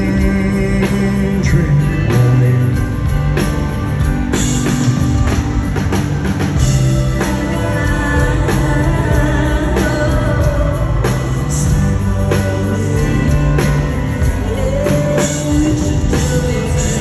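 Live band music through a concert PA, with a steady drum beat, guitar and keyboard playing.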